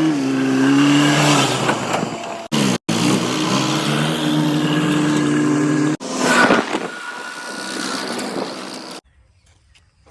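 Motor engine running steadily at changing pitch, chopped by abrupt cuts into separate pieces; after the last cut a different, noisier sound runs briefly, then the sound drops away abruptly to a much fainter level.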